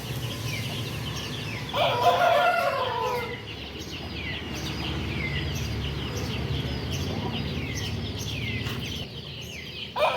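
Chickens calling: many short, high peeps that fall in pitch repeat throughout, and about two seconds in a single louder, lower call from an adult bird lasts about a second and a half. A steady low hum runs underneath.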